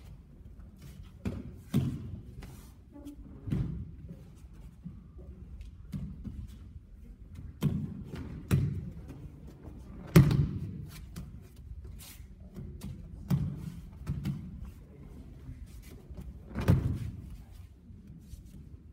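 Bodies landing on tatami mats as aikido partners are thrown and take breakfalls: a series of irregular heavy thuds, the loudest about ten seconds in.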